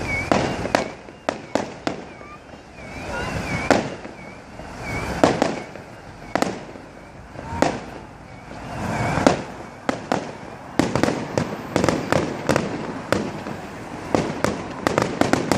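Fireworks display: repeated sharp bangs and crackling bursts that swell and fade, becoming a dense, rapid barrage in the last few seconds. A warbling high whistle sounds over the first few seconds.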